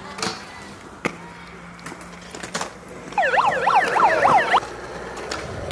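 Skateboard clacks and landings on concrete, with a megaphone siren sweeping rapidly up and down for about a second and a half, starting about three seconds in; the siren is the loudest sound.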